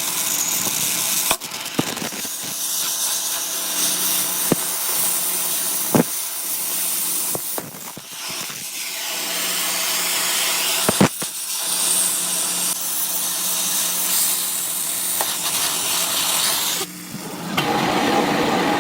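Metal lathe running with a steady motor hum under a continuous hissing, scraping cut into steel, with a few sharp clicks.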